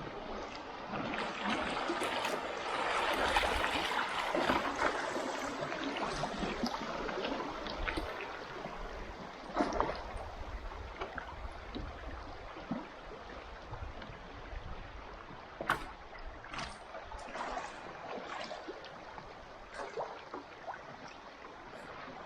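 River water splashing and trickling around a raft. The splashing is loudest for the first several seconds, then settles into a quieter trickle broken by scattered small splashes and knocks.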